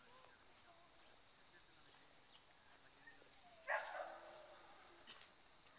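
A dog barks once, a single short bark nearly four seconds in, against near silence.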